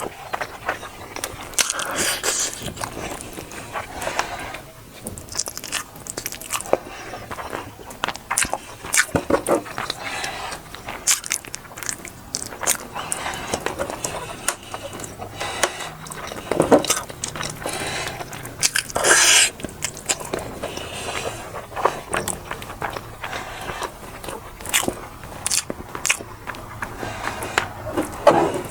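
A person eating close to the microphone: chewing and biting food, with many irregular short, sharp clicks and smacks.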